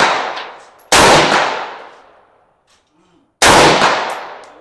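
Two rifle shots about two and a half seconds apart, each a sharp report followed by a long echo dying away. The echo of a shot fired just before is still fading as it opens.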